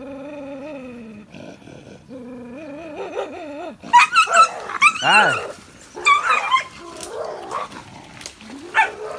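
Dogs in a scuffle: wavering growls at first, then from about four seconds in, loud high-pitched yelps and snarls in several outbursts, with one more near the end.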